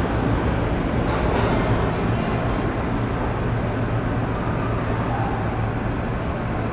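New York City subway train running on the rails at the station, a steady loud rumble with a low hum that eases off slightly toward the end.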